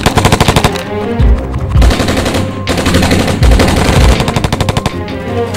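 Several bursts of rapid automatic gunfire, with a film score and a few deep drum hits underneath.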